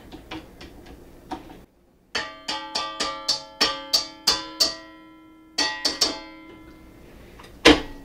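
Short plucked-string music cue: a quick run of bright picked notes, each ringing and fading, with a few more notes about six seconds in. A single sharp knock comes near the end.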